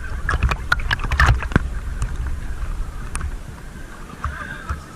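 Sea water splashing and sloshing around people in the water, with wind rumbling on the microphone; a run of sharp splashes in the first couple of seconds, quieter near the end.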